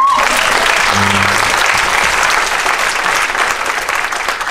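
Audience applauding, with a brief voice from the crowd about a second in; the clapping dies away near the end.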